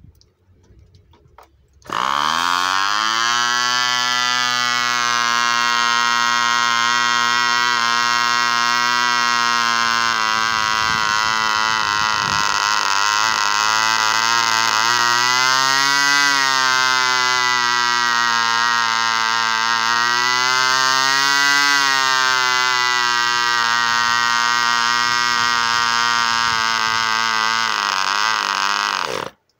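Cox .15 Medallion two-stroke glow engine bursts into life about two seconds in and runs loud at a high, steady speed, its pitch swinging up and back down twice, then cuts out suddenly near the end. It is running without its exhaust pipe, on a custom ABC cylinder and a new glow plug.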